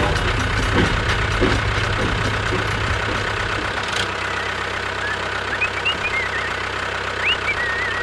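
A tractor engine running steadily, with the engine sound changing about halfway through. A few short high chirps near the end.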